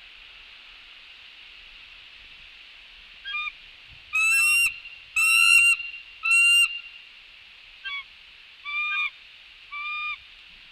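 Bald eagle calling at the nest: a run of seven clear, flat-pitched notes with a short downward drop at the end of each, starting about three seconds in. The three notes in the middle are the loudest and longest.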